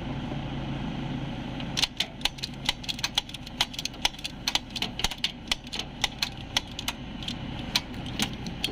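Metal vise-grip pliers rapping repeatedly on a car's starter motor, starting about two seconds in: sharp taps at about four a second. This is the old trick of knocking a starter to free stuck carbon brushes, and the starter stays dead. A low steady hum sits underneath.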